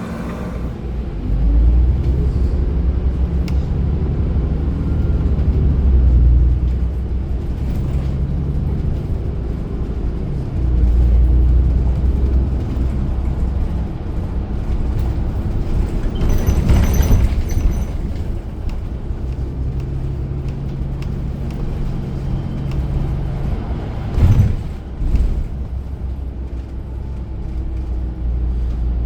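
A city transit bus under way, heard from inside: its engine and drivetrain running with a heavy low rumble of road noise, the engine note shifting up and down. A brief high whine comes about two-thirds of the way in, and a sharp knock, like a bump in the road, a few seconds later.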